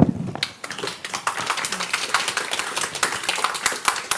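Audience applauding: a dense patter of hand claps that starts all at once and tails off near the end.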